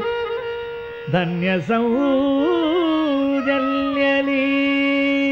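Carnatic classical music: a melody line with quick ornamented slides about a second in, settling into one long held note over a steady drone.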